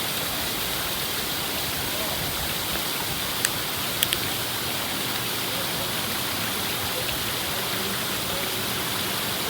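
Mallyan Spout waterfall rushing steadily. Two or three short sharp clicks about three and a half to four seconds in.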